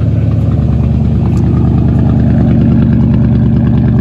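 Car engine idling steadily on its first run after a 70 mm throttle body has been fitted in place of the 60 mm stock one.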